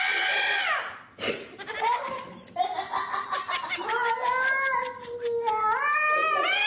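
Domestic cat yowling at a dog through a glass door: long drawn-out calls that waver up and down in pitch, with a short sharp knock about a second in.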